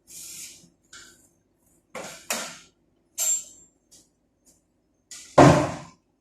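Several short knocks and clatters of things being handled, the loudest a heavy thump about five and a half seconds in.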